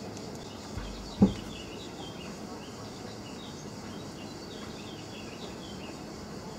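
Outdoor ambience with small birds chirping, a quick run of short high notes, and one sharp thump a little over a second in, the loudest sound.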